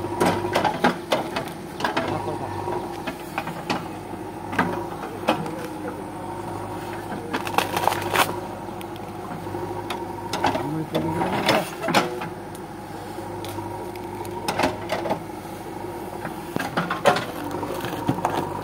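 JCB backhoe loader's diesel engine running steadily under hydraulic load as the backhoe bucket digs through soil and tree roots, with frequent sharp knocks and cracks from the bucket.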